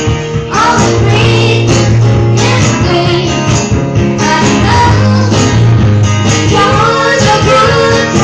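Live acoustic guitar strummed in a steady rhythm with singing into microphones, a small duo playing a song. The recording is loud and slightly clipped at the top, as from a phone in the room.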